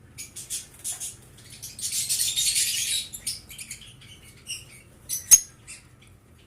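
Lovebirds chirping and screeching in short high-pitched calls, thickening into a louder burst of chatter about two seconds in, with one sharp click a little after five seconds.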